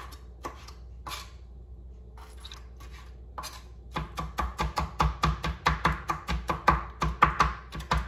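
Kitchen knife chopping pickled chiles on a cutting board: a few separate cuts at first, then from about four seconds in a fast, steady run of about five strikes a second.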